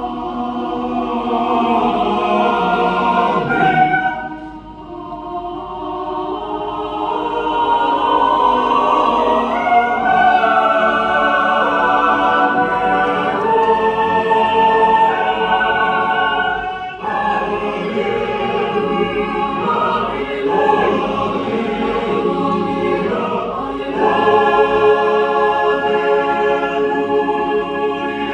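Choir singing held chords in several parts. The sound thins out and drops about four seconds in, then builds again, breaks off for a moment past the midpoint, and swells louder near the end.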